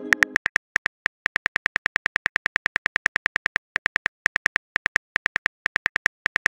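Smartphone keyboard click sounds, a rapid even run of short, bright ticks about eight a second with a few brief pauses, one tick per letter as a text message is typed. The ringing tail of the message-sent sound dies away at the start.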